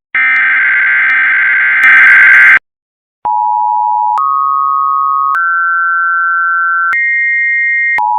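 Emergency Alert System-style electronic tones. First comes a harsh, buzzing tone burst of about two and a half seconds, growing louder and noisier for its last half second. After a short pause, a two-tone attention signal starts at the EAS pitch pair, steps up in pitch three times, then drops back to its starting pitch.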